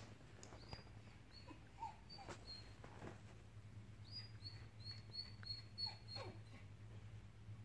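A dog whimpering faintly behind a glass door: short high-pitched whines, coming in quick succession about four to six seconds in, over a steady low hum.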